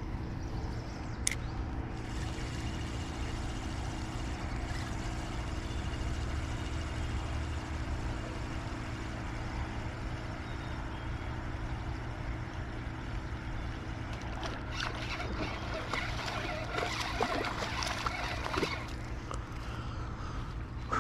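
Steady low engine-like hum. From about fifteen seconds in there are irregular splashes, clicks and knocks as a smallmouth bass is brought in.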